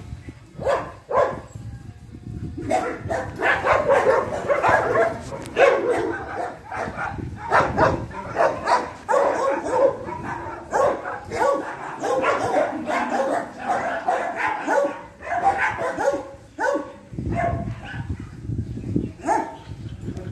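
Several dogs barking and yipping, calls coming thick and fast, busiest from a few seconds in until a few seconds before the end.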